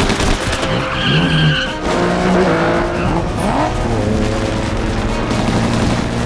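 Car-chase sound: engines revving and tyres skidding, with a squeal in the first couple of seconds, over music with long held notes.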